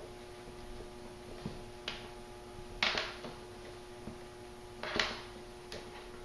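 Hands working shock cord around a shotgun shell on a paracord sling: a few short rustles and scrapes, the loudest about three seconds in and others near two and five seconds, over a faint steady hum.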